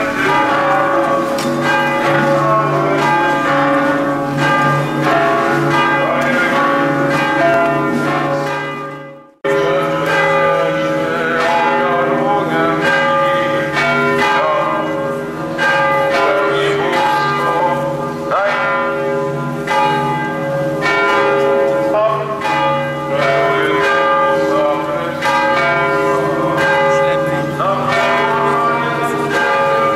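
Several church bells ringing together, struck again and again, their tones overlapping and hanging on. The ringing fades out briefly about nine seconds in and comes back abruptly.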